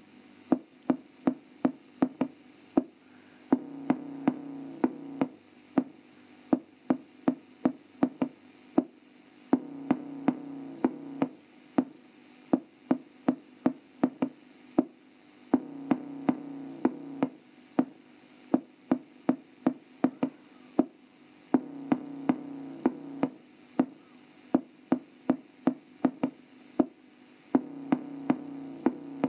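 Bass test music played through the built-in speaker of an Orion TV/VCR combo CRT television. A sharp knocking beat comes about three times a second, and a bass synth tone joins it for a second or two roughly every six seconds. Almost none of the deep bass comes through.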